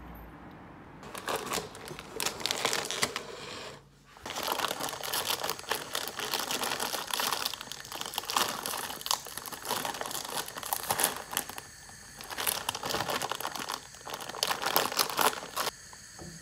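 Plastic instant-noodle packet crinkling as it is torn open and handled, in uneven bursts with a short break about four seconds in.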